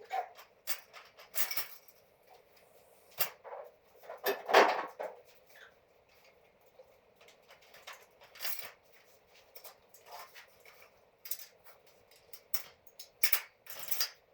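Scattered metal clinks and knocks from hands-on work, irregular and short, with a longer, louder clatter about four and a half seconds in.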